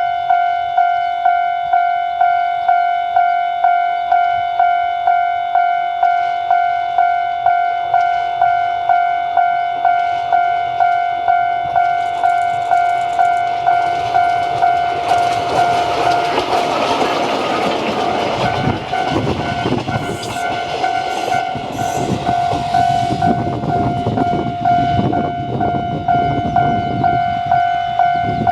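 A level-crossing bell ringing steadily at about two strikes a second. A DD350 diesel locomotive with two old passenger coaches passes over it, its engine and wheel clatter building about twelve seconds in and fading after about twenty-four seconds.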